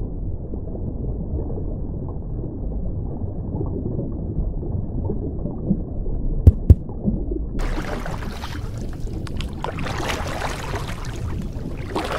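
Muffled, low underwater rumble of water. About six and a half seconds in come two sharp clicks, the loudest sounds here, and a second later the sound opens up into brighter, crackling water noise.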